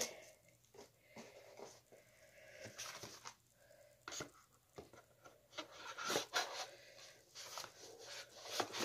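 Handling of a cardboard razor-kit box as the razors are put back and the tray is slid into its sleeve: light rustling and scraping with a few short clicks and taps.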